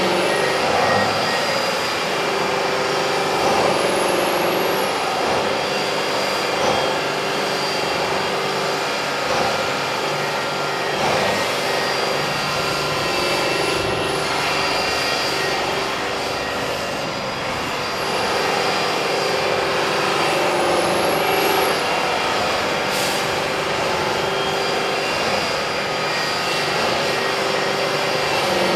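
Heavy diesel machinery running steadily, with a faint high whine that rises and falls every few seconds.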